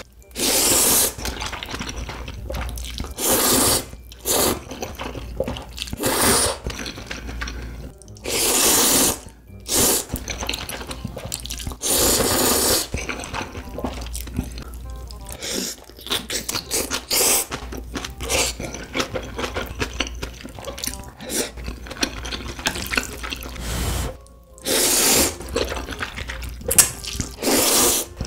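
Spicy ramen noodles being slurped in a series of long slurps, each about a second, with wet chewing and mouth sounds between them.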